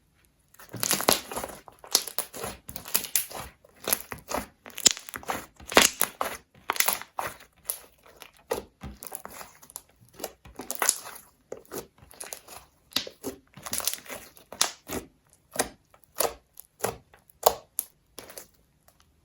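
Slime being squeezed and kneaded by hand, making a rapid, irregular run of wet crackles and pops.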